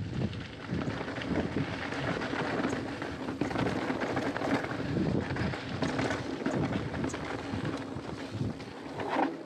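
Mountain bike riding fast down a rocky dirt trail: tyres crunching and chattering over gravel and stones, with the bike rattling and wind rushing over the camera microphone.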